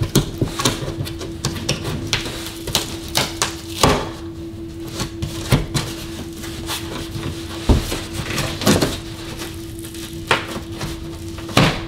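A stapled cardboard box being pried open by hand: a run of clicks, scrapes and rustles as the flaps are worked against the staples, with louder snaps about four seconds in, near the middle and just before the end. A faint steady hum runs underneath.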